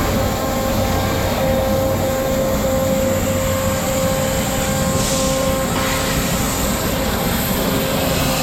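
Flow waterjet cutter running: loud, steady machine noise with a steady whine, and a brief burst of hiss about five seconds in.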